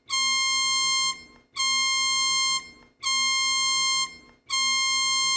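Emergency alert alarm tone: a harsh, buzzer-like beep lasting about a second, repeating about every one and a half seconds, four times.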